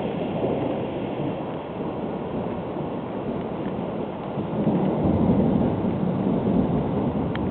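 Rolling thunder from a close lightning strike, a continuous low rumble that swells louder about five seconds in, with rain underneath.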